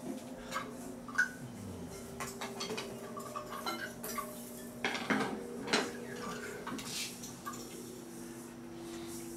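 Scattered light clinks and taps of hard objects, like dishes or metal being handled, over a steady low hum. A second held tone grows stronger near the end.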